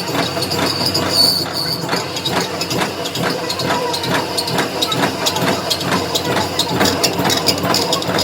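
Workshop machinery working metal: a steady hiss with a rapid, irregular clatter of small metallic clicks and knocks, and a brief high whine about a second in.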